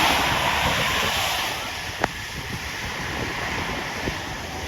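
Road traffic noise: a vehicle's passing hiss swells at the start and fades over a second or so into steady traffic hiss, with a small sharp click about two seconds in.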